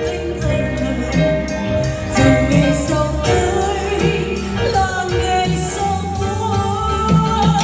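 A live band performing, with a woman singing lead into a microphone over the drum kit and the rest of the band.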